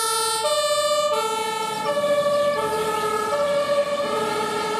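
Two-tone siren of a German fire engine, a MAN turntable ladder truck, sounding on an emergency run. It alternates evenly between a high note and a low note, each held a little over half a second, and the notes shift slightly about two seconds in.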